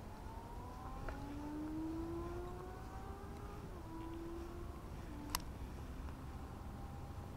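A vehicle engine accelerating, its hum rising slowly in pitch with a brief dip partway through, over a low rumble; a single sharp click about five seconds in.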